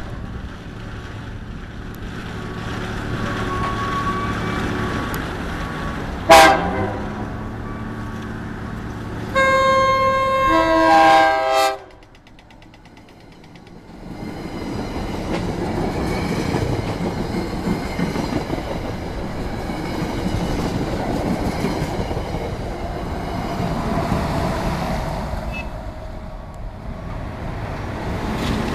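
SEPTA Regional Rail electric train approaching and sounding its horn: a very short toot about six seconds in, then a loud, longer chord-horn blast about nine seconds in that ends abruptly. After a break, a train of passenger coaches rolls past close by with steady wheel and rail rumble.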